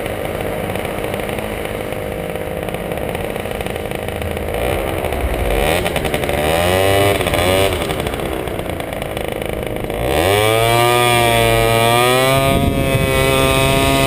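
70cc Sym Jet Euro scooter engine running under way, its pitch wavering up and down for a few seconds. About ten seconds in the revs climb sharply as the scooter accelerates, and it settles into a louder, steady higher drone.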